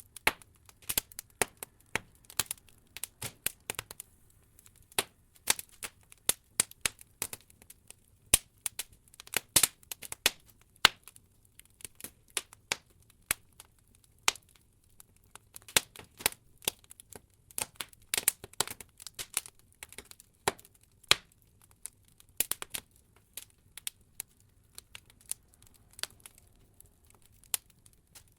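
Wood logs burning in an open fireplace, crackling with irregular sharp pops and snaps, a few a second, thinning out now and then before picking up again.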